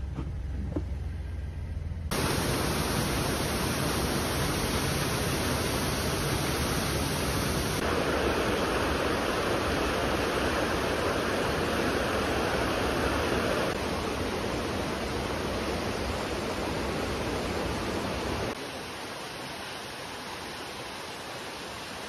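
Rushing water of a mountain stream or waterfall, a steady full hiss heard across several clips cut together, each with a slightly different loudness and tone. A low rumble fills the first two seconds before the water starts.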